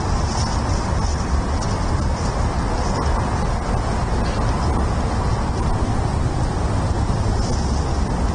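Steady low outdoor rumble picked up by the bald eagle nest cam's microphone, with faint high chirps now and then.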